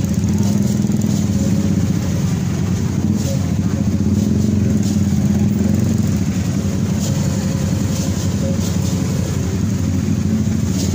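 A steady engine running, a continuous low drone that holds level without revving up or down.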